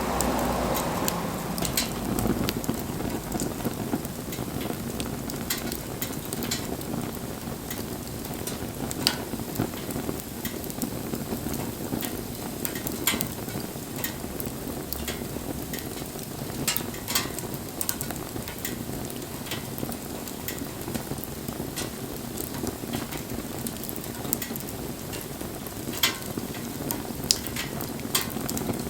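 Wood campfire burning with a steady hiss and frequent sharp crackles and pops, a few of them much louder snaps.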